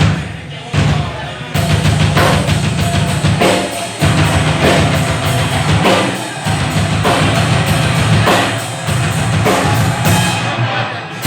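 Rock band playing live during a sound check, drum kit and bass to the fore, with steady evenly spaced drum and cymbal hits. The sound is thinner for the first second and a half, then the full band plays.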